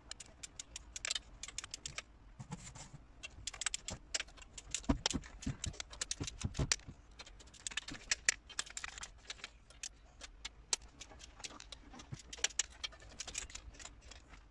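Ratchet and torque-wrench ratchet clicking while the cylinder head bolts of a VW 1.4 TSI engine are run down and tightened to their first torque stage, in irregular runs of rapid metallic clicks.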